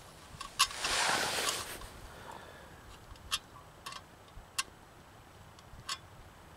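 Metal cup being shifted on a small folding Esbit stove: a short scrape about a second in, then a few separate, sharp light clicks.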